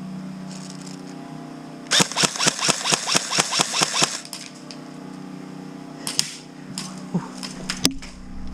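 Airsoft guns firing: a rapid string of about a dozen shots in two seconds, then a few single shots.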